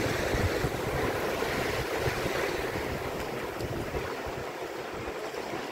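Sea surf on a sandy beach: small waves breaking and washing up the shallows in a steady rush, easing a little in the second half. Wind buffets the microphone with low rumbles.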